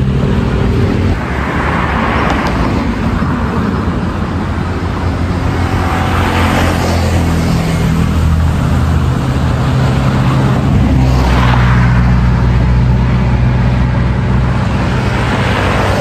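Road traffic: a steady low engine hum, with vehicles passing every few seconds, each one a swell of tyre and engine noise that rises and fades.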